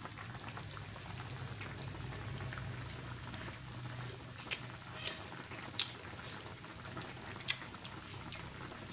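Tomato-and-fish broth simmering in a steel wok, a steady fine bubbling crackle with a few sharper pops in the second half.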